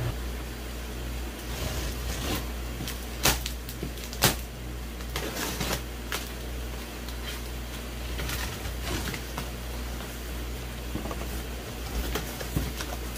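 Cardboard shipping box being opened: tape slit with a box cutter and the flaps folded back, with scattered rustles and ticks and two sharp knocks about three and four seconds in. A steady low hum runs underneath.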